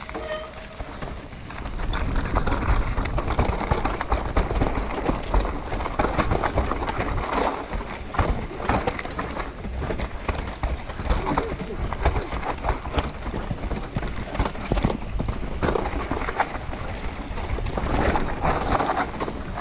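Mountain bike descending a rough downhill trail, heard from a GoPro on the rider: tyres crunching over gravel and rock, with rapid irregular rattling and knocking from the bike and a low wind rumble on the microphone. It grows louder about two seconds in.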